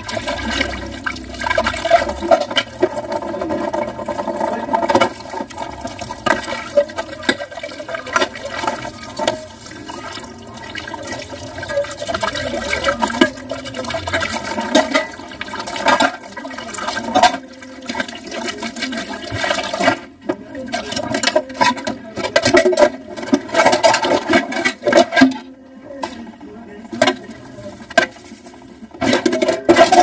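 Tap water running into a steel sink while dishes are rinsed and scrubbed, with repeated clinks and clatter of steel and plastic dishes. In the last third the rush of water breaks up, with short quieter gaps between the clatter.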